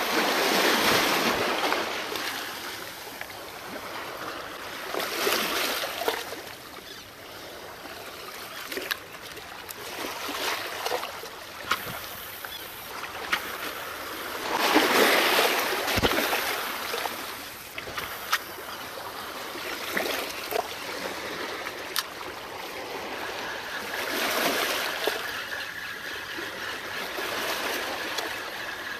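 Small waves washing against shoreline rocks, swelling and falling back every several seconds, with a few sharp clicks in between.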